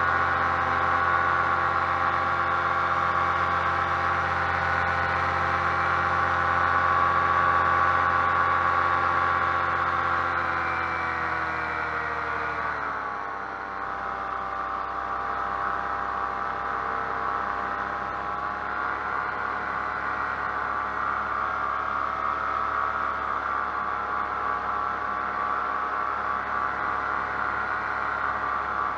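Paramotor engine and propeller running steadily at high throttle during the climb; about halfway through the pitch slides down as the throttle is eased back, and it runs on steadily at the lower setting.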